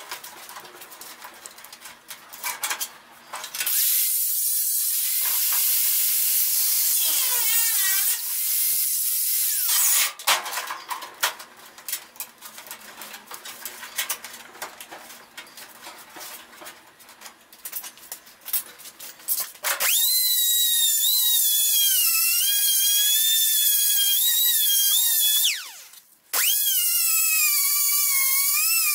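Small high-speed cutoff grinder cutting sheet metal: clicks and scrapes of the metal being handled, a spell of hissing grinding noise, then from about two-thirds of the way in a loud high-pitched whine that wavers in pitch under load. The whine stops for about a second and starts again.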